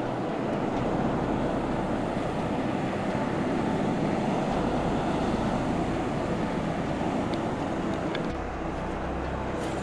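Steady wash of sea and wind noise on open water, with wind on the microphone and surf breaking on the shore. A few faint ticks come near the end.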